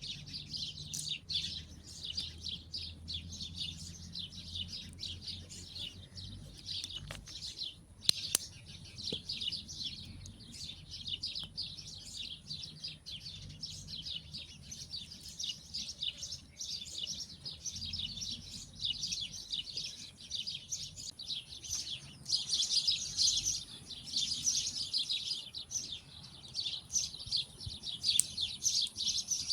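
A dense chorus of small birds chirping and twittering without a break, growing louder about two-thirds of the way through. There is a faint steady high-pitched tone underneath, and a couple of sharp clicks come about seven and eight seconds in.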